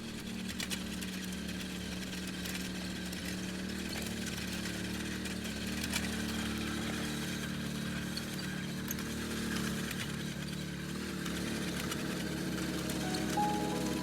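A small engine running steadily, with faint scattered clicks and knocks over its even drone.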